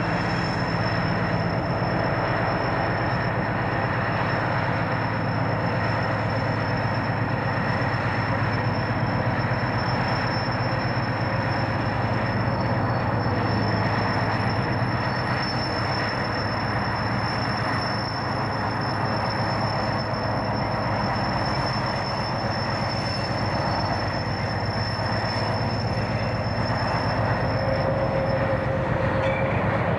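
British Rail Class 60 diesel locomotive's eight-cylinder Mirrlees engine running steadily as the locomotive moves slowly. A faint wheel squeal comes in near the end.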